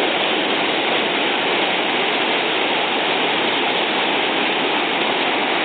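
Waterfall crashing steadily into its pool: a constant, even rush of falling water with no breaks.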